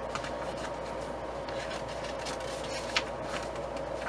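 Electric fan running with a steady hum and whoosh, with one brief click from items being handled about three seconds in.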